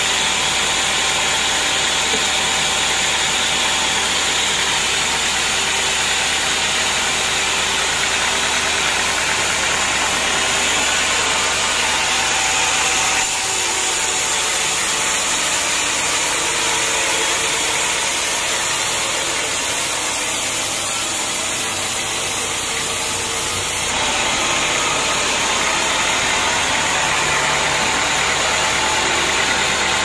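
Band sawmill running steadily, its band blade sawing lengthwise through a teak log, with the drone of the mill's drive. The noise shifts abruptly twice, about 13 and 24 seconds in.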